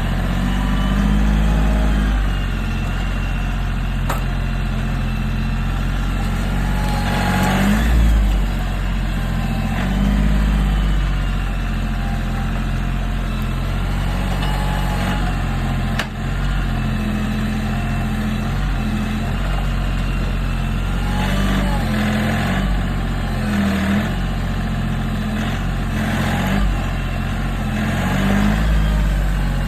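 Kioti CK3510 compact tractor's diesel engine running steadily while working a grapple, its note swelling and shifting briefly several times.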